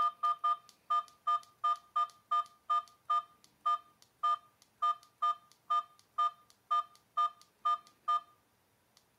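Key-tone beeps from a CAMMHD body camera as its buttons are pressed over and over to scroll through the menu: about twenty short electronic beeps, two or three a second, stopping about eight seconds in, with one more near the end.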